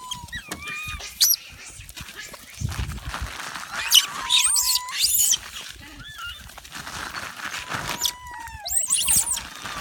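Monkeys squealing: high-pitched calls that rise and fall, a short one about a second in, a louder cluster around four to five seconds, and another near the end, with thinner whistle-like glides between them.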